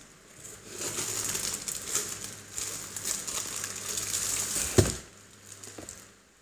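Clear plastic packaging bag crinkling and rustling as it is handled, with one sharp thump about five seconds in, then a few fainter rustles.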